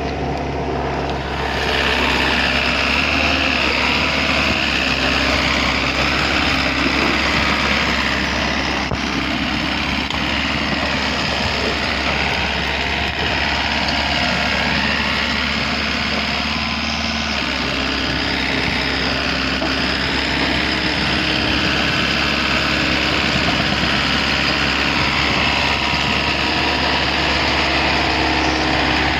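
Engine of a heavy construction machine running steadily, with a slight shift in its pitch about two thirds of the way through.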